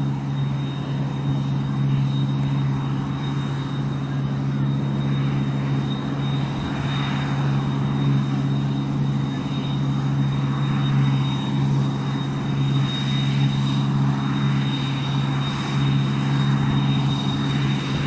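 Deutz-Fahr 5690 HTS combine harvester running under load while cutting spring barley: a deep, steady engine drone with a thin high whine held over it.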